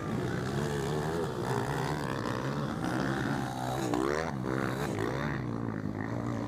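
Motocross bikes' 230 cc four-stroke single-cylinder engines revving hard on the track, their pitch climbing and dropping again and again. About four seconds in, one engine's revs sweep steeply up and fall away.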